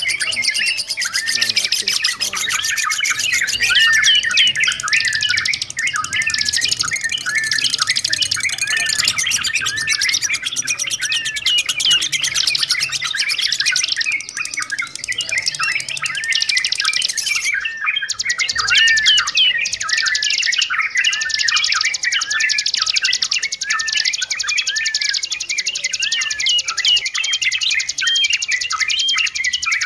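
Yellow-vented bulbuls calling noisily: a dense, continuous chatter of short, rapid chirps from several birds, with a brief break just past the middle.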